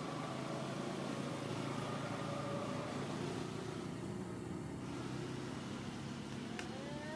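A steady low engine hum, a motor vehicle running nearby, with faint drifting tones above it. Near the end a short wavering high-pitched call sounds.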